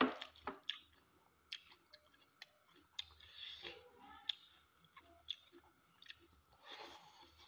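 Eating by hand: wet mouth clicks and chewing, with the soft squish of fingers mixing rice and curry. The sharpest smack comes right at the start.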